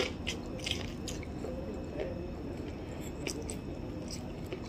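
Corn on the cob being bitten and chewed close to the microphone: wet, squishy chewing with sharp clicks, several in the first second and a few more after about three seconds.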